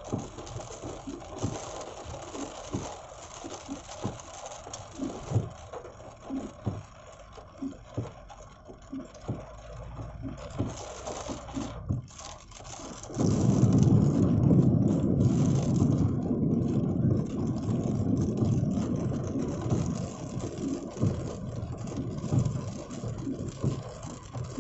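Rain on a moving car, heard from inside, with road and engine noise: scattered low knocks at first, then about 13 seconds in a louder, steady low rushing sets in.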